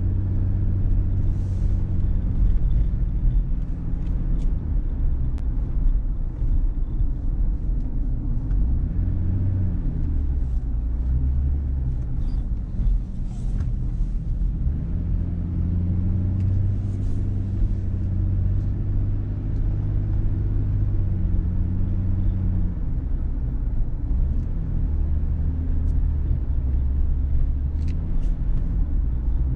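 Car driving on city streets: a steady low engine hum whose pitch shifts several times as the car changes speed, over a continuous rumble of road and tyre noise.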